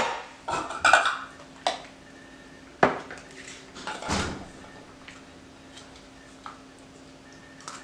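A plastic measuring cup knocking and scraping against a stainless-steel mixing bowl as chopped cabbage is tipped out: several sharp knocks and clatters in the first four seconds, then only a few faint taps, over a faint steady hum.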